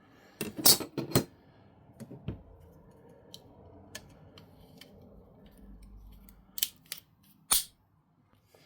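Folding pruning saw being handled, giving a scattered series of sharp metallic clicks and snicks. The loudest clicks come about a second in and again near the end.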